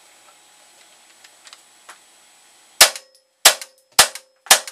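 Henry U.S. Survival AR-7 .22 rifle firing hypervelocity .22 LR rounds semi-automatically: four sharp shots about half a second apart starting a little past halfway, after a few faint handling clicks. The rifle is cycling and feeding each round properly after its recoil-spring modification.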